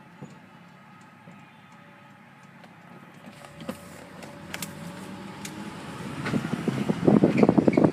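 Car driving with a window open: road and wind noise builds as it gathers speed, and for the last couple of seconds wind buffets the microphone in rapid, loud thumps.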